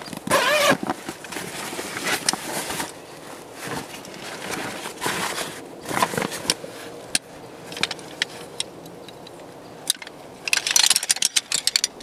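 Nylon fabric of a stuff sack and camp chair rustling as it is handled, with scattered clicks and then a quick run of clattering clicks near the end as the chair's red shock-corded metal poles knock and snap together.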